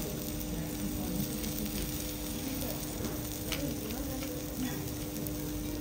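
Sliced vegetables sizzling steadily on a hot steel teppanyaki griddle.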